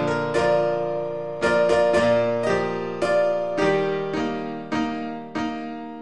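Slow background music on a piano-like keyboard, with notes struck one after another about every half second to second, each left to ring and fade.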